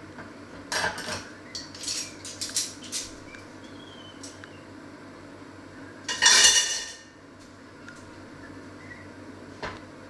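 Kitchenware being handled: pots, dishes and cutlery clinking and knocking. Several quick clinks come in the first few seconds. A louder clatter lasting about a second comes about six seconds in.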